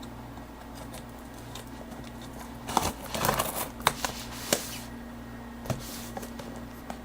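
Shipping packaging being handled: rustling with sharp clicks and taps for a couple of seconds about three seconds in, and a single click later, over the steady hum of a desktop computer that is running loud.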